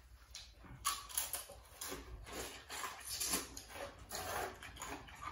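People eating noodles: a run of short, noisy slurps and mouth noises.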